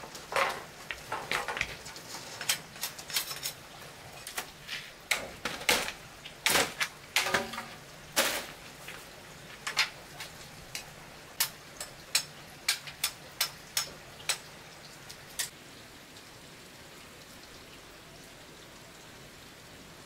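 Irregular sharp knocks and clatters of a bamboo pole and hard objects striking ground and a concrete path, a few ringing briefly. Later comes a run of evenly spaced taps, about two a second, which stop about three-quarters of the way through, leaving a faint steady hiss.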